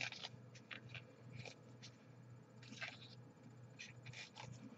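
Faint, scattered light clicks and scrapes of a thin plastic candy-kit tray and small plastic fork being handled.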